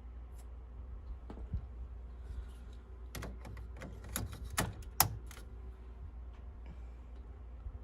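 A run of sharp plastic clicks and taps as inkjet cartridges are pushed into the printer's print-head carriage and snap into place. The clicks cluster in the middle, with the loudest snap about five seconds in.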